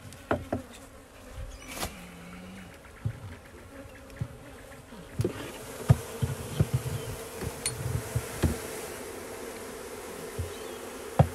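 Honeybees buzzing as a mass while they are tipped and knocked out of a wooden bee-vacuum box into a catch box. A run of sharp wooden knocks and thumps comes over the buzz, thickest in the middle and with one loud knock near the end.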